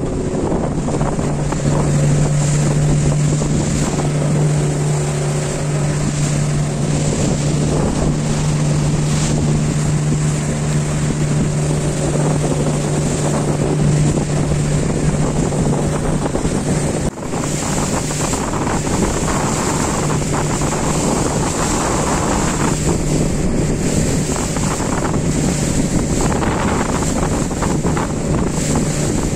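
Motorboat engine running steadily under way, with water rushing past the hull and wind buffeting the microphone. The engine tone drops out briefly a little past halfway, then resumes.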